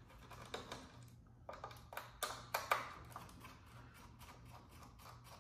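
Scattered light clicks and taps of a hex key and small metal screws, bunched most closely about two seconds in, as the stock extruder is unscrewed from a 3D printer's frame.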